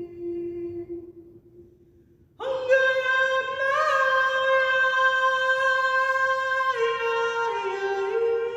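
A woman singing a wordless chant in long held notes. A low note fades out, and after a short pause a higher note enters strongly about two seconds in and is held steadily, then steps down and back up near the end.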